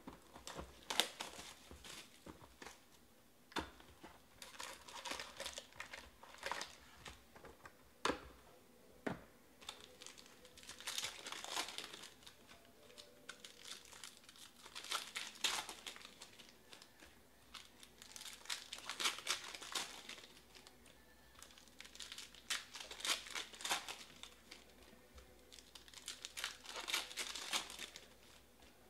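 Foil wrappers of 2020 Panini Chronicles Draft Picks football card packs being torn open and crinkled by hand, in repeated bursts every few seconds. A few sharp clicks come between them as the cards are handled.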